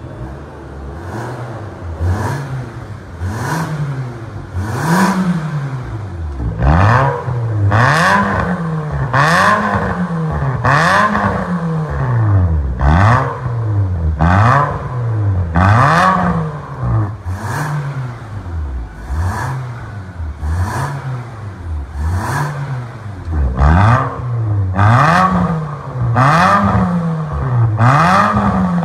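Nissan Almera's exhaust through an aftermarket remote-controlled valve muffler, the engine revved up and back down over and over in quick blips, about one every second and a half. It idles briefly before the blipping starts, and each rev peak brings a raspy exhaust note.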